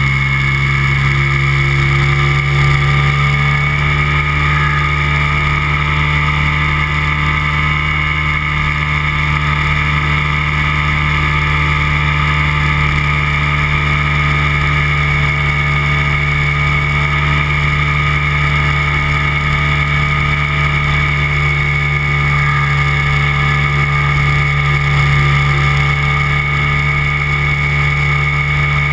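Microlight trike's engine and pusher propeller running at a steady drone in flight.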